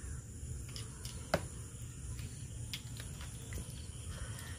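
A few short, sharp plastic clicks and knocks as the hose is pushed onto the spray gun handle of a knapsack sprayer, the loudest about a second and a half in, over a steady low background noise.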